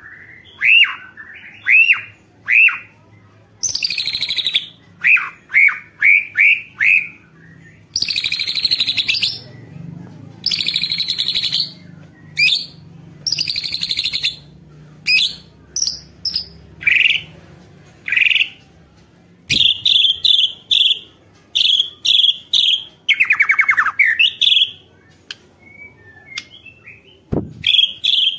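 White-rumped shama (murai batu) in full, energetic song ('gacor'): quick clear whistled notes sweeping up and down, mixed with harsh rasping rattles ('ketrek') about a second long, and runs of fast repeated notes.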